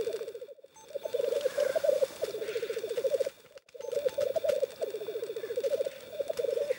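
Male black grouse rookooing in their lek display: a low bubbling coo made of rapid pulses, in repeated phrases. The sound breaks off briefly twice.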